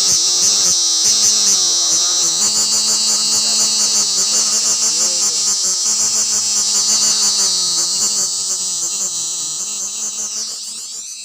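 Cicada calling: a loud, high-pitched steady buzz with fast pulsing. It glides in pitch and fades out near the end.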